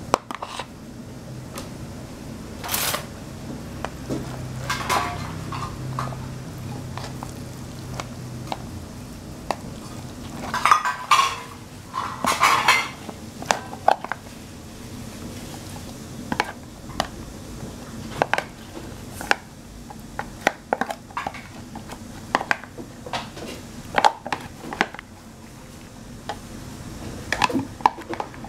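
Kitchen utensils knocking and scraping against a stainless steel bowl and a plastic container as a crumbly filling is scraped out with a silicone spatula and stirred into macaroni with a wooden spoon: scattered sharp clicks and clatters, with louder bursts of clatter a few times.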